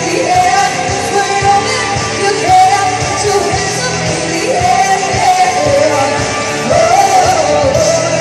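A rock song: a singer holds and slides through long sung phrases over a steady drum beat.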